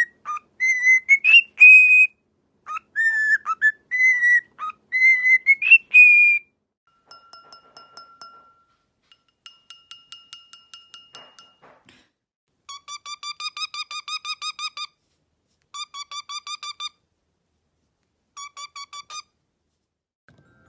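Parrot whistling a tune in loud phrases that slide up and down in pitch, then making quieter rapid clicks and trills, and ending with three bursts of fast repeated chirps.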